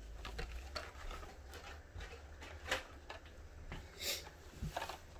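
Hot Wheels blister-card packages and the cardboard case being handled: scattered faint clicks and rustles of plastic and card, with a couple of sharper clicks a little over halfway through.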